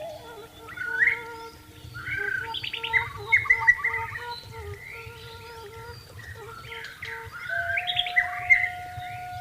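White-rumped shama singing a run of varied whistled and chattering phrases, loudest about a second in, around three seconds in and near the end. Faint, long-held flute notes sound underneath.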